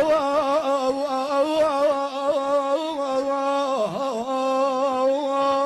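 A man's voice chanting an Arabic mourning lament, drawing out one long sung note that wavers in pitch, with a short dip about four seconds in.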